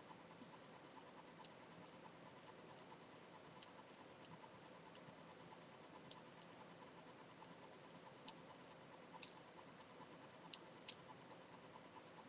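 Faint, irregular clicking of knitting needles tapping together as a scarf is knitted, a sharp tick every second or two.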